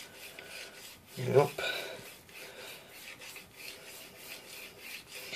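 Dovo straight razor blade stroked back and forth on the wet 8000-grit side of a water-soaked whetstone: a steady run of soft scraping rubs, one with each pass.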